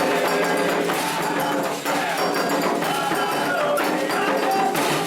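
Candomblé ritual music: voices singing a chant for the orixás over a struck iron bell and hand drums, played steadily.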